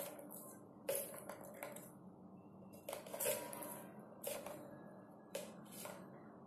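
Plastic balls clicking and rattling inside a three-tier plastic cat track-tower toy as a cat paws at them, a string of short clattering knocks coming every second or so.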